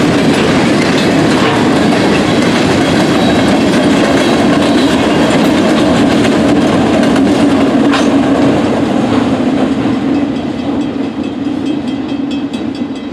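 Freight train of empty steel grain hoppers rolling past, wheels clattering over the rail joints, with the rear pair of GP38M-2 diesel locomotives going by partway through. The sound fades over the last few seconds as the train moves away.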